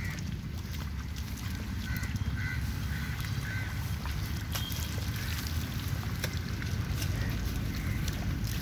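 Wind buffeting the microphone in a steady low rumble, over small splashes and sloshes of water and mud as rice seedlings are pushed by hand into a flooded paddy. A few faint high chirps come about two to three and a half seconds in.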